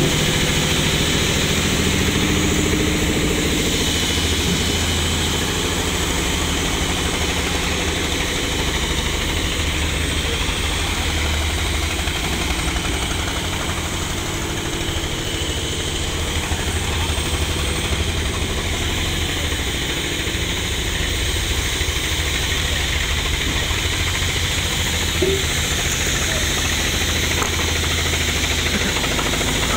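Steady, even drone of running sawmill machinery, a low engine-like hum that does not change.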